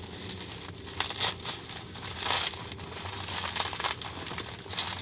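Plastic bubble wrap being handled and pulled open, crinkling and rustling in irregular bursts, loudest about a second in, a little after two seconds and near the end.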